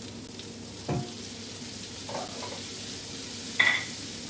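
Sliced winged beans sizzling in hot oil in a wok as they are tipped in and stirred with a silicone spatula. There is a knock about a second in and a sharper, ringing clink near the end.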